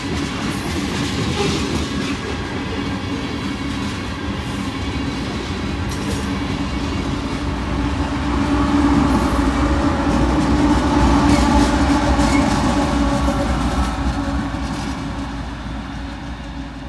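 Freight train of tank cars rolling past with steady rumble and wheel clatter. Diesel locomotives in the train pass about halfway through, and their engine drone makes the sound loudest in the middle before it eases off near the end.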